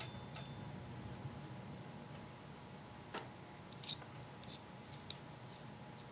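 Faint scattered clicks and light taps of a digital caliper's jaws on a 1911 collet barrel bushing as it is turned to find the outer diameter, about half a dozen over a faint steady hum.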